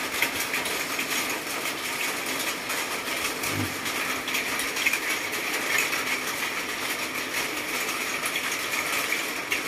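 Steady rain: an even hiss with fine, dense pattering.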